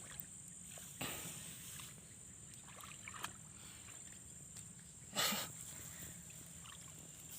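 Rice-field ambience: a steady high-pitched insect drone, with a short noisy swish about five seconds in.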